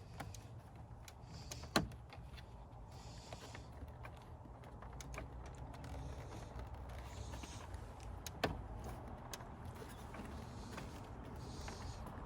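Faint handling sounds of coolant hoses and fittings being worked by hand in an engine bay, with two sharp clicks, one about two seconds in and one about eight and a half seconds in, over a low steady hum.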